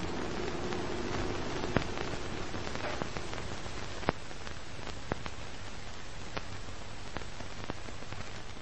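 Old-film soundtrack noise: a steady hiss over a low hum, with scattered crackles and pops about once a second, the loudest near two and four seconds in. It starts to fade near the end.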